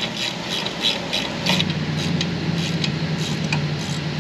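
Ratcheting wrench clicking in quick, uneven strokes, about three or four clicks a second, as a nut is run down on a suspension bracket at the control arm. A steady low hum comes in about a second and a half in.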